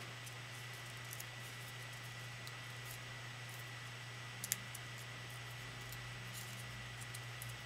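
Origami paper being folded and creased by hand: faint rustles and crinkles, with one sharp crackle about four and a half seconds in. A steady electrical hum and hiss sits under it throughout.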